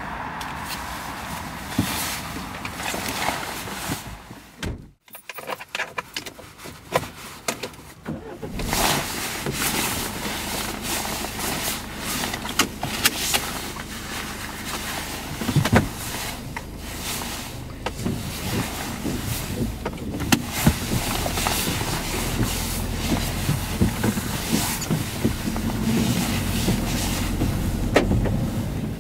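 Small van's cabin: door and seat-belt clicks and knocks as the driver gets in and settles, then the van's engine running steadily near the end.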